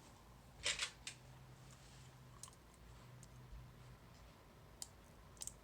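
Small metal lock parts being handled, as when a follower is swapped in a disassembled cam lock: a short rattle under a second in, then a few light, sparse clicks.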